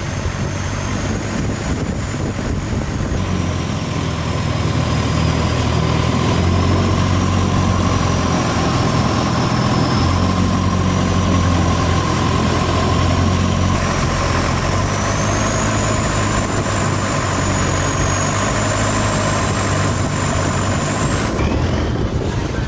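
Motorboat engine running steadily, its low drone growing a little louder a few seconds in and easing back later, with a steady whine over it.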